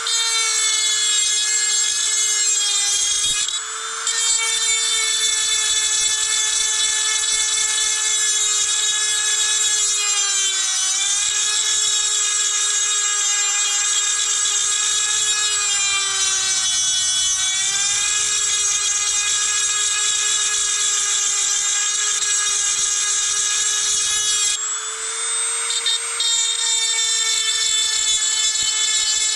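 Dremel rotary tool running at high speed, a steady whine as it grinds down a corner of the scooter's engine case casting for variator clearance. The pitch sags briefly twice as the bit is pressed into the metal, and shifts when it lifts off near the start and about three-quarters through.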